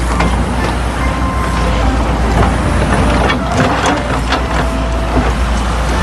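Hyundai wheeled excavator's diesel engine running steadily with a deep rumble as the bucket digs into a dirt bank, with a few knocks of bucket and soil.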